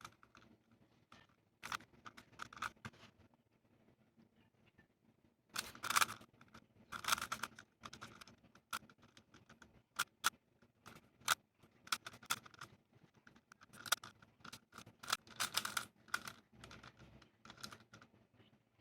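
Plastic speedcube (GAN 356i) being turned by hand: irregular bursts of clacking, with a few single sharp clicks.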